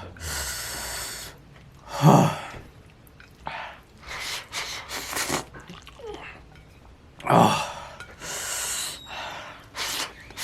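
A man gasping and hissing air in and out through his mouth again and again, with a few louder voiced gasps, from the burn of extremely spicy ghost pepper noodles.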